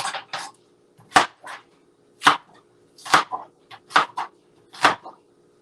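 Knife chopping an onion in slow, separate strokes, about one a second, some followed by a lighter second tap.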